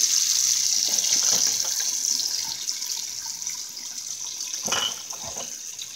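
Kitchen tap running into a stainless-steel sink: a steady hiss of water that drops in level after about two seconds, with a few soft knocks as a plastic toy capsule is handled.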